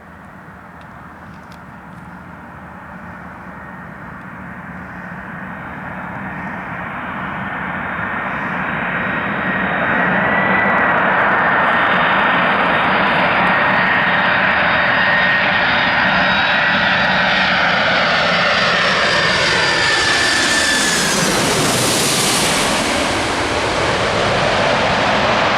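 Boeing 747-400's four jet engines on landing approach, growing steadily louder as it nears, then loud and steady as it passes, its engine whine dropping in pitch about twenty seconds in.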